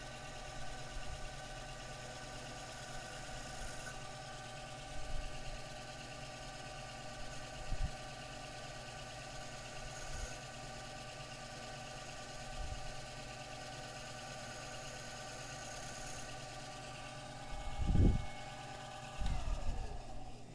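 A small lathe spins a pool cue with a steady motor whine and hum while the cue tip is trimmed flush with the ferrule by hand with a blade. There are a few soft knocks and two louder low thumps near the end, then the lathe is switched off and its whine falls in pitch as it spins down.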